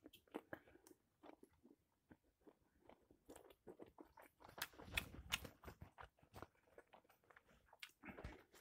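Faint close-up eating sounds: a person biting into a grilled game-meat groat sausage and chewing it, with many small scattered mouth clicks and smacks.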